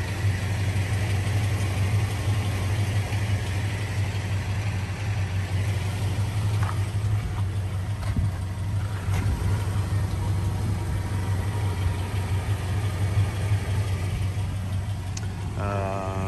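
1998 Toyota Tacoma's 2.4-liter four-cylinder engine idling with a steady, even low hum.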